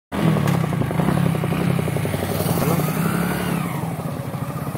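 Motorcycle engine running steadily at a cruise with a fast, even pulse, heard from on the bike while riding, with wind rushing over the microphone.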